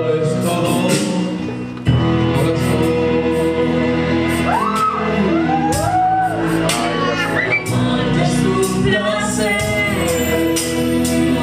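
A woman and a man singing a romantic ballad as a duet into microphones, backed by a live band with acoustic guitar, in a large hall.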